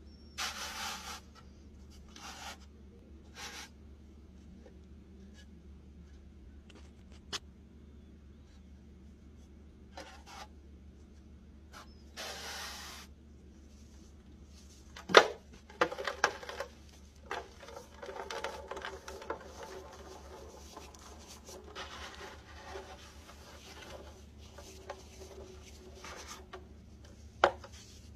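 Molded baking soda shapes being handled and crushed by hand: scattered short scrapes and rubs of the powdery blocks, then a sharp snap about halfway through as one breaks, followed by several seconds of crumbly crunching, and another snap near the end.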